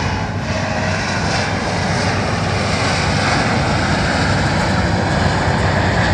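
Jet noise from a Blue Angels F/A-18 Hornet making a low pass, a steady roar that grows louder as the jet comes closer.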